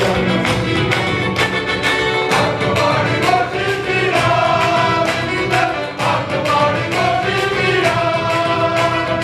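Men's choir singing a Malayalam Christmas carol, with hand-clapping keeping a steady beat.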